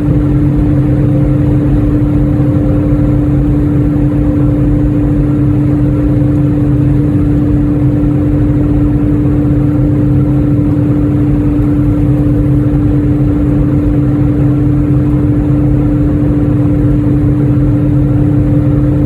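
Airplane cabin noise: the aircraft's engines droning steadily under an even rush of air, with a strong constant hum.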